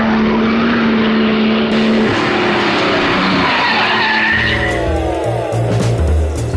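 A car driven hard: engine noise with a tyre squeal in the middle, and music with bass notes coming in about four seconds in.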